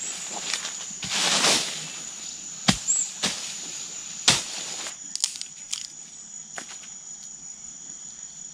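Insects trilling steadily at a high pitch. In the first half come several sharp knocks and a short rustling swish, followed by a few lighter clicks.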